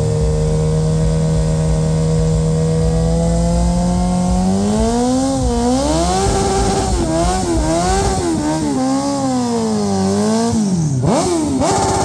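Motorcycle engine held at steady revs for about four seconds, then revved up and down again and again, with a few quick, sharp blips of the throttle near the end.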